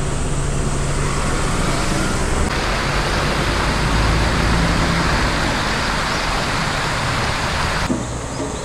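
Steady rush of a mountain river tumbling over rocks, becoming louder and brighter abruptly about two and a half seconds in and dropping back just before the end. A low steady hum runs under the first few seconds.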